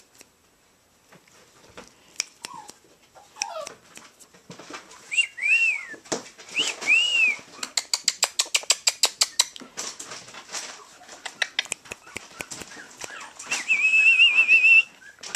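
Runs of quick, sharp clicking or kissing noises, about six a second, made to get a puppy's attention. A few short high arching squeaks come a few seconds in, and a wavering high squeal lasts about a second near the end.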